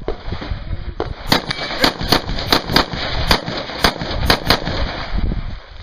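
Rifle fired in a rapid string of about nine sharp shots over some three seconds, a quarter to half a second apart.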